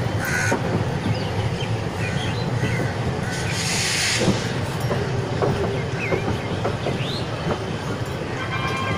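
Indian Railways express passenger coach running, heard from its open door: a steady low rumble with wheels clicking over the rail joints. A burst of hiss comes about four seconds in, and a high ringing tone near the end.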